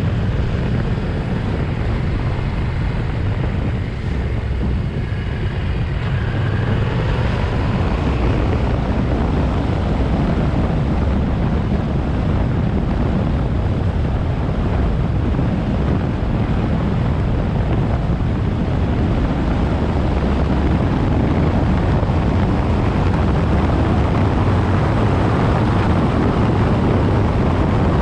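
Yamaha Ténéré 700's 689 cc parallel-twin engine running steadily as the motorcycle rides along, with wind buffeting the microphone.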